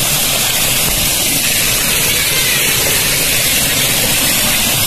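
Rushing river water at a waterfall, heard as a steady, even hiss.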